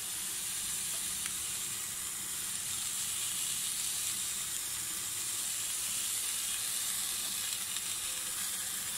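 Steady sizzling hiss from whole tomatoes, red onions and green chillies cooking in a steel pot over a gas flame.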